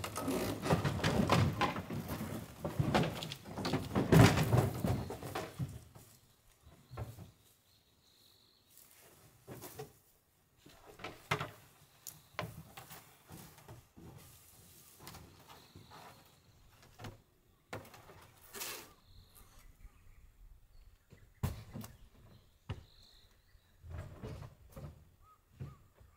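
Dense rustling and scraping with many knocks for about six seconds, then scattered light knocks and taps with quieter gaps between them.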